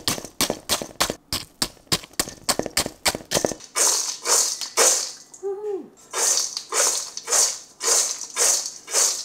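A wooden spoon scraping and knocking against a stainless steel bowl, breaking up clumps of baked granola in a quick clatter. From about four seconds in, the steel bowl of granola, dried fruit and nuts is shaken to toss it, a dry rattling swish about twice a second.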